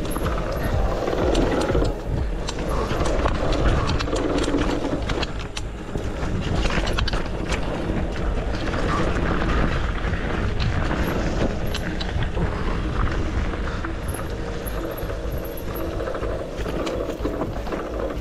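Downhill mountain bike, a Cube Two15 full-suspension bike, descending a rough dirt trail: wind buffeting the helmet or chest camera microphone, tyres crunching over dirt and roots, and the bike's frame, chain and parts rattling with many quick knocks.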